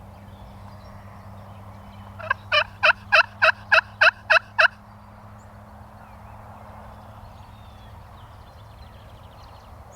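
Wild turkey yelping: a loud series of about nine evenly spaced notes, about four a second, starting about two seconds in and lasting roughly two and a half seconds.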